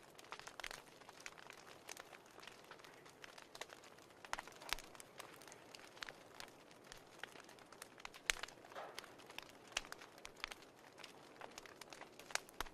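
Fireplace crackling: irregular sharp pops and snaps over a soft, steady hiss.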